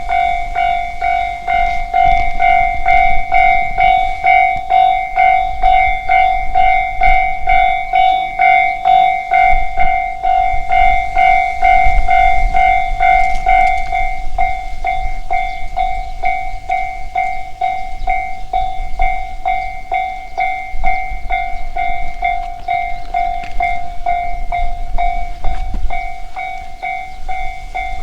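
Japanese level-crossing warning bell ringing steadily at about two strikes a second, over the low rumble and rail clatter of a train passing the crossing.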